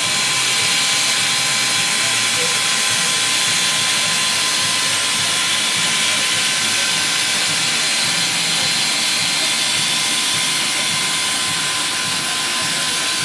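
Steam hissing loudly and steadily from NZR JA class steam locomotive 1275, built by North British in 1951, as it stands ready to depart, with a few faint steady tones in the hiss.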